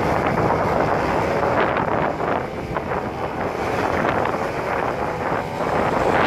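Wind buffeting the microphone, with the steady drone of a radio-controlled Extra 300 aerobatic model plane's motor underneath as it flies low and nose-high.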